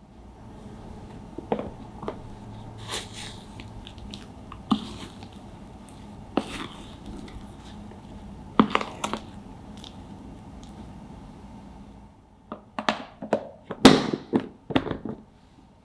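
A spoon stirring and scraping half-frozen ice cream in a plastic tub, with scattered scrapes and knocks: this is the periodic stir of the freezing mix. Near the end comes a quick cluster of sharp clicks and knocks as the tub's plastic lid is pressed shut.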